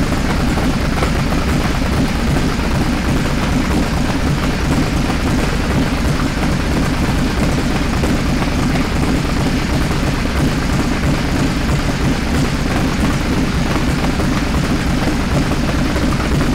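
Freshly built 1956 Ford F100's engine running at a steady idle, heard close to its twin exhaust tips under the truck.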